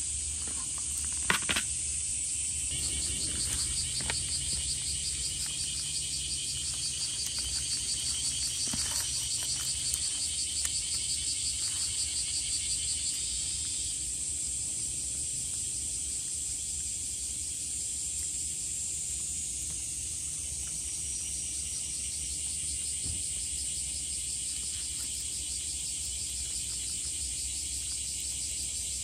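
A steady, high-pitched chorus of chirring insects. A faster pulsing trill is layered on top from a few seconds in until about halfway through. There are a couple of sharp clicks about a second and a half in.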